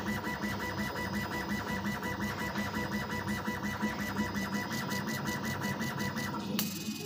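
CO2 laser cutter's stepper-driven head shuttling rapidly back and forth while raster-engraving text into an acrylic sheet. It makes a steady, rhythmic mechanical buzz with several strokes a second and stops abruptly with a click near the end.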